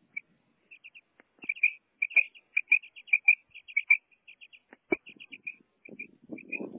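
Female common quail calling: a fast run of short, high notes, mostly in pairs. A single knock comes about five seconds in, and there is low handling rustle near the end.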